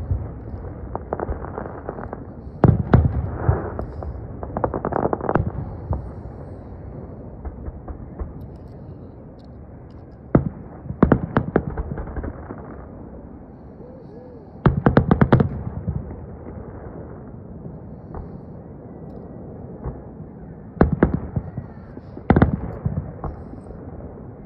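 Aerial firework shells bursting: sharp bangs coming in irregular clusters of several quick reports, a few seconds apart.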